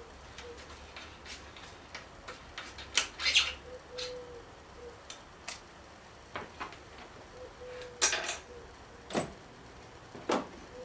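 Tools and bike parts being handled: irregular clicks and knocks, with louder clattering about three seconds and eight seconds in.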